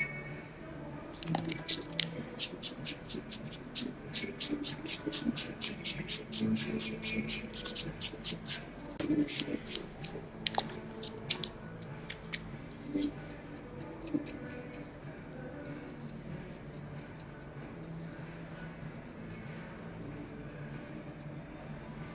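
Quick, regular scratchy strokes, about five a second, of a nail tool scraping over a fingernail while gel polish is removed. After about ten seconds they fade to lighter scattered clicks and rustling.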